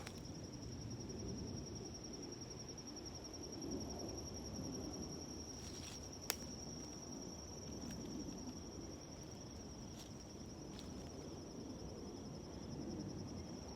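An insect trilling steadily: a continuous, high-pitched, finely pulsed trill over a low rumbling background, with a single sharp click about six seconds in.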